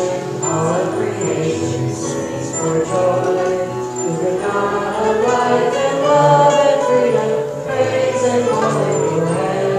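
Hymn sung by voices, accompanied by a small stringed instrument.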